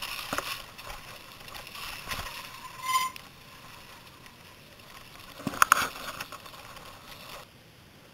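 Mountain bike rattling and knocking as it rides down a rough dirt trail, with a brief high squeak about three seconds in and a loud clatter of sharp knocks a little before six seconds.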